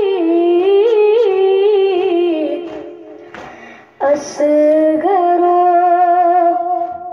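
A boy's solo voice chanting a Kashmiri noha, a Shia mourning lament, unaccompanied, in long drawn-out notes with wavering ornaments. The phrase trails off about halfway through. A new phrase starts about four seconds in and settles into one long held note.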